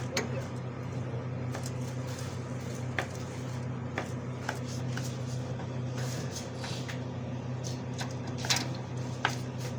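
A steady low hum runs throughout, with scattered sharp clicks and light knocks, the loudest a little after eight seconds in.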